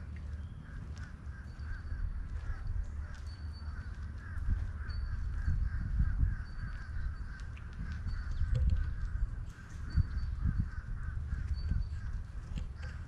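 Outdoor ambience: wind rumbling unevenly on the microphone, over a continuous chatter of animal calls and a short high chirp that repeats about once a second.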